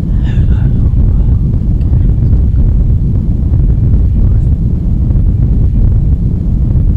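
Loud, steady low rumbling drone with no rhythm, a continuous soundscape. A faint, brief higher sound comes just after the start.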